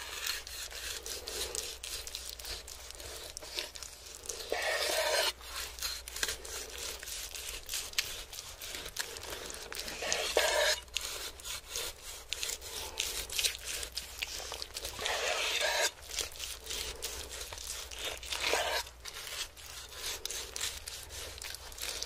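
A knife sawing through a large roast joint with a crisp, crackling crust, in repeated scraping strokes. A louder crunching stretch comes every few seconds as each slice is cut through.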